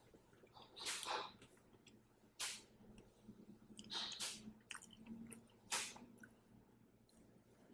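A person eating a pork wonton from soup: chewing and other mouth sounds, with four short, noisy bursts about one and a half seconds apart.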